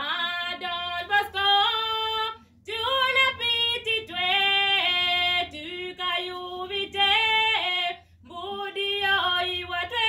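Youth choir singing a cappella, led by female voices, in phrases of held notes broken by two short pauses about 2.5 and 8 seconds in.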